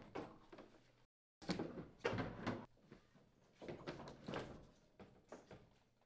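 Carrier/Gree ETAC heat pump unit being slid into its wall sleeve, with scraping and light knocking in several short bursts.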